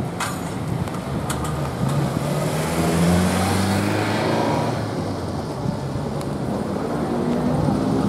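Road traffic: a car's engine rising in pitch, then falling away as the car drives past, with tyre hiss. Near the end another vehicle's engine begins to climb.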